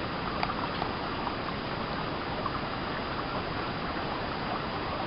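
Creek water running steadily, with a few small ticks and splashes in the first second.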